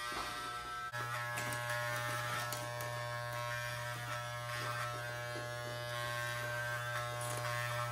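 Electric hair clippers running with a steady buzz, growing louder about a second in.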